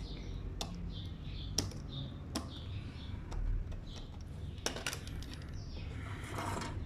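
Scattered light clicks and taps from handling a small electronic circuit board and tools on a workbench, a handful of separate ticks over low room hum.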